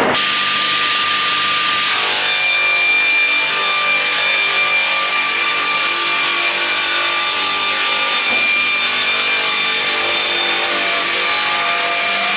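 GP-630 slab-processing machine sawing wood: a continuous loud cutting noise with steady high ringing tones from the running saw, one of which comes in about two seconds in.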